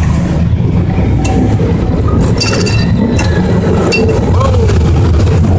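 San Francisco cable car rolling along its track: a steady low rumble with metallic clinks and rattles, sharpest about two and a half seconds in and again near four seconds.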